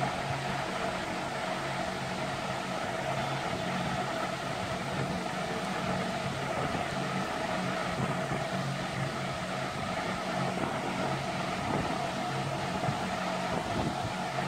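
Steady machine hum: a low drone with a fainter, higher constant tone over a hiss.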